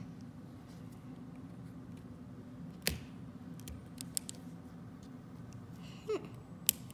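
Fingers and nails picking and scratching at the plastic wrap and seal of an L.O.L. Surprise ball, giving scattered sharp clicks and crinkles over a steady low hum. The loudest click comes about three seconds in. The seal is tough, and the fingers keep failing to get it open.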